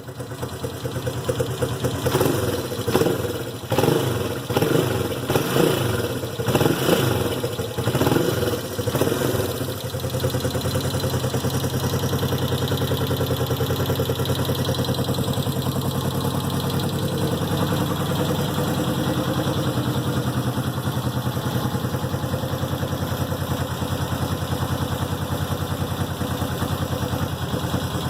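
Vintage motorcycle engine blipped up and down several times in its first ten seconds, then settling into a steady idle.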